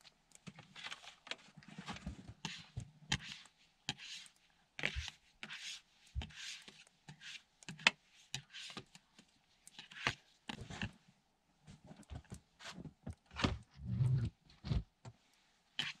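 Snow being cleared off a folding solar panel and boots crunching in deep snow: irregular scrapes, crunches and knocks, with a few heavier thumps near the end.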